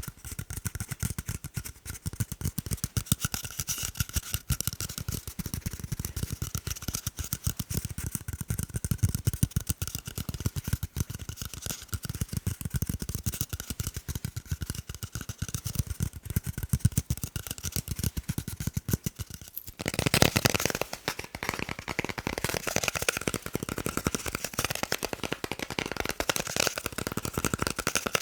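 Rapid, dense tapping on hard objects, many quick taps a second. About twenty seconds in the tapping changes to a brighter, busier pattern.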